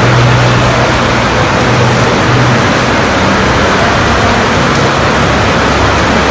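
Heavy tropical rain falling steadily, a dense, even hiss. A low hum runs underneath, strongest in the first couple of seconds.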